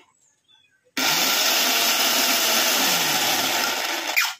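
Mixer grinder motor switched on about a second in, running at full speed for about three seconds, then switched off with a short falling whine as it spins down. The motor and its coupler bush spin, but the jar's blade does not turn with them, so nothing is ground: the fault is in the jar's blade shaft.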